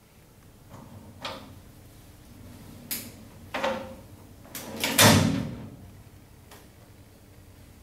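Grey metal cover panel on a water-jetting machine being handled and slid open: a few separate knocks and clunks, the loudest and longest a sliding clatter about five seconds in.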